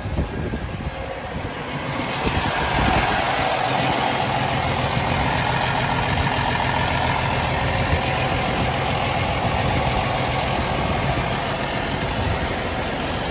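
Cummins ISX 500 inline-six diesel running at fast idle, a steady drone that gets louder about two seconds in as the open engine bay is approached.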